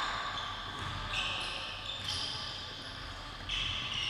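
Full-court basketball game on a hardwood gym floor: the ball bouncing and sneakers squeaking in several short, high-pitched squeals.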